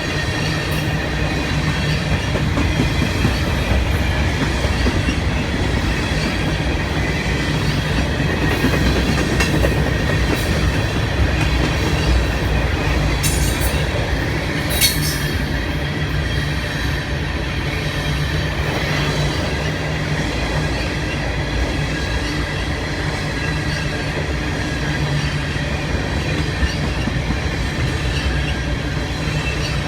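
Freight train of grain hopper cars rolling past: steady wheel-on-rail rumble with a faint high wheel squeal and a couple of sharp squeaks or clicks about halfway through.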